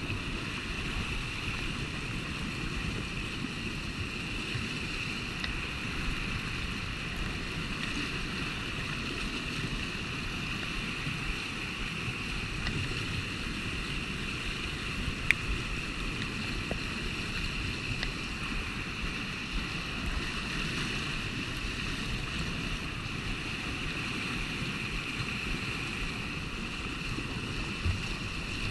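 A swollen river running high through rapids: a steady rush of fast water, with one sharp click about halfway through.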